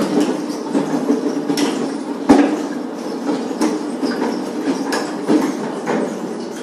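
Hand pallet jack loaded with stacked concrete blocks being pulled across a hard floor: a steady rolling rumble from the wheels, with irregular clacks and knocks as the load rattles, one louder knock about two seconds in.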